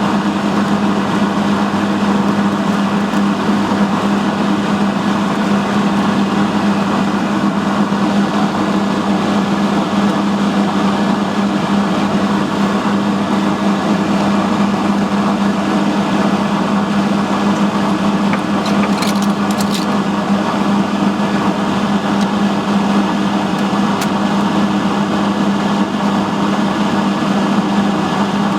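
Steady, loud mechanical hum of a running machine with a low droning tone, and a few faint clicks about two-thirds of the way through.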